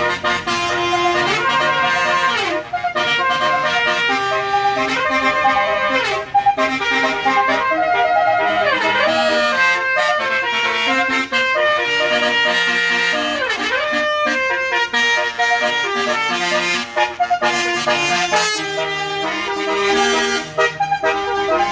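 A tour bus's basuri horn, an electric multi-tone melody horn, playing a tune in stepped notes. The tune is broken about four times by a siren-like swoop down and back up.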